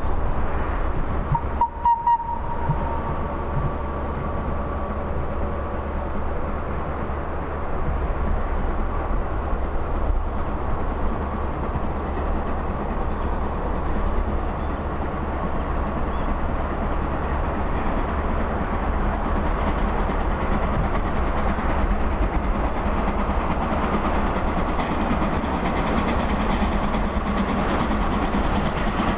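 FS Gr 625 steam locomotive hauling a train of coaches along the line, a steady continuous running noise of locomotive and wheels on the rails, with a short high tone about two seconds in.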